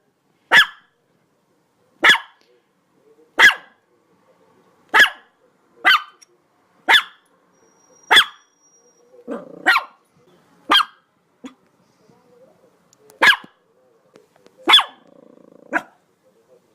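A dog barking: about a dozen single sharp barks, roughly one a second, with a short low growl between barks about nine seconds in and again near fifteen seconds.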